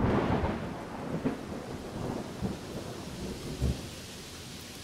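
Thunder cracks in suddenly and rumbles, with further low peals about every second, over steady rain that carries on as an even hiss once the thunder dies down.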